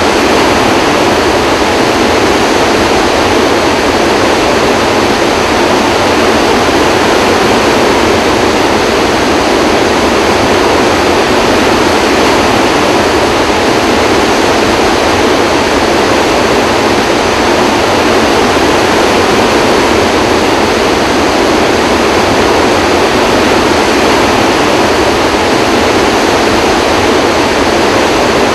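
Floodwater rushing through the open spillway gates of Kaw Dam during a flood release: a loud, steady roar of water with no let-up.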